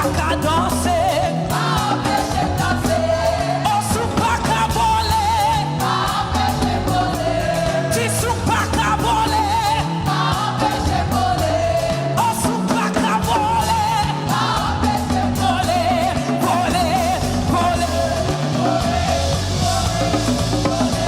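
Live worship music: a lead singer and praise team singing a gospel praise song with a full band of drums, bass and keyboard, with long, wavering held notes in the melody.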